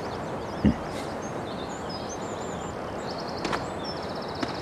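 Outdoor ambience of small birds chirping and trilling over a steady background hiss, with a short low thump a little under a second in and a couple of faint clicks near the end.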